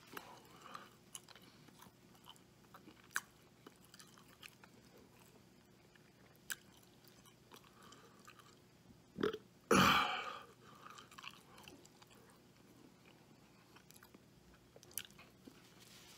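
Close-up chewing of a bacon cheeseburger, with soft wet mouth clicks, some crunching and swallowing. About ten seconds in there is a short loud throat sound.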